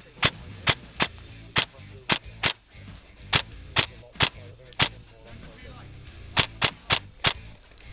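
Airsoft rifle firing single shots: about fifteen sharp cracks in uneven groups, with a pause of over a second shortly after the middle.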